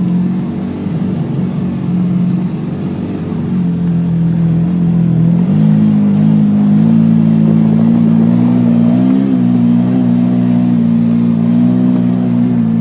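Side-by-side utility vehicle's engine running under way. Its pitch steps up about three and a half seconds in and again about five and a half seconds in, then holds steady.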